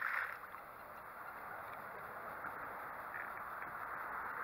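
Water gurgling and lapping against a small boat's hull, a steady hiss with a few faint ticks.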